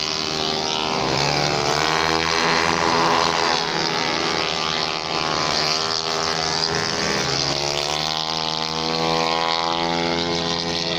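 130 cc automatic racing scooters passing at high revs, their engines rising and falling in pitch as they go by, in two waves.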